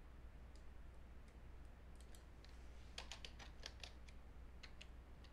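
Computer keyboard typing, faint: a few scattered keystrokes, then a quick run of keys about three seconds in, over a low steady hum.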